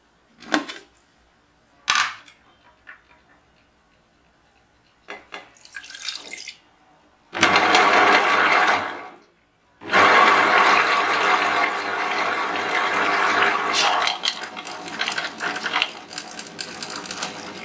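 Soaked fenugreek seeds and urad dal being poured with their soaking water into the drum of a tabletop wet grinder, a rushing, splashing noise, in one short spell and then a long one. Two clicks near the start as the grinder's lid is handled.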